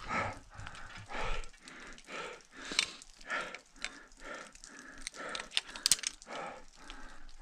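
A climber's heavy, rapid breathing at high altitude, hard breaths in and out about twice a second. Two sharp clicks break in, a little before halfway and near the end.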